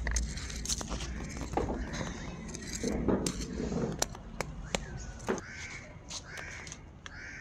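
Small plastic trowel scraping and knocking in stony garden soil, with handling knocks and rustle, while birds give short calls several times in the background.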